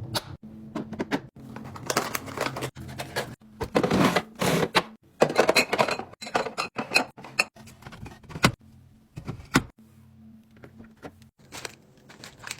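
Plastic containers and food packaging being handled and set down: an irregular run of clicks, taps and rustling, busiest in the middle few seconds, with a couple of sharp single clicks later on.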